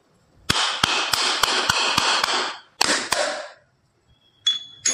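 A whole brown coconut struck repeatedly to crack it open: about seven sharp knocks in two seconds over a steady hiss, then two more knocks. Two light clinks near the end.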